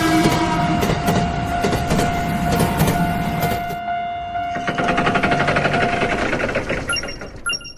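Train running past with a loud, rapid clattering rattle that fades out near the end.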